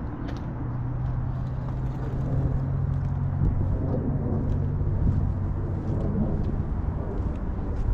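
A motor vehicle engine running with a steady low hum, over a wash of road noise.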